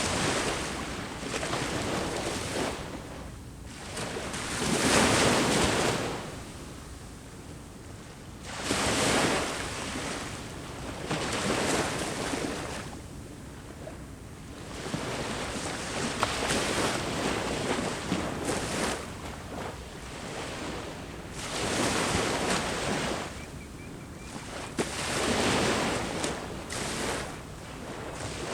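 Sea waves breaking on a shore, the surf rushing in, swelling and fading again about every three to four seconds, with the loudest breakers about five seconds in and near the end.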